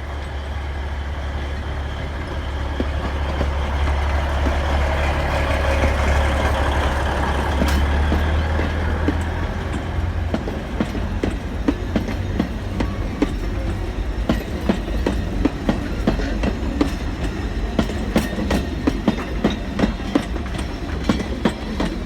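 Alishan Forest Railway train pulling away. The Nippon Sharyo diesel locomotive's engine runs with a steady low drone for the first half. From about halfway on, sharp wheel clicks and knocks on the rails take over.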